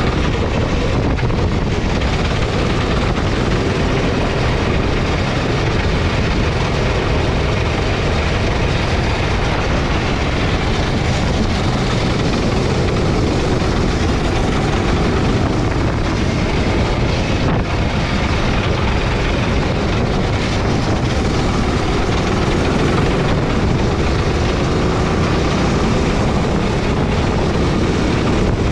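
Sodikart gasoline rental kart engine running under way around the track, heard from on board. It is a steady, loud sound whose pitch drifts gently up and down with the throttle, over a dense rushing noise.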